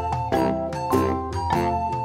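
Background music: a light tune of quick, evenly paced notes.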